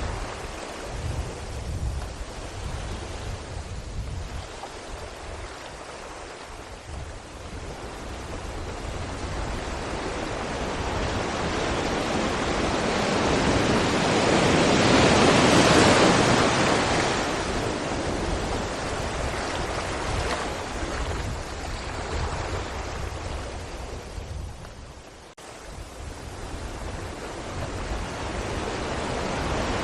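Sea waves breaking against rocks: a wash of surf that swells to a loud peak about halfway through and then ebbs. It dips sharply for a moment a little before the end, then the next swell builds.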